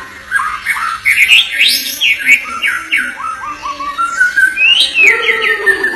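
White-rumped shama (murai batu) singing a fast, continuous run of varied whistled notes, with quick rising and falling sweeps.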